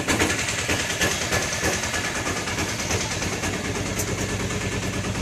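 A motor vehicle's engine running steadily, with a fast, even pulsing.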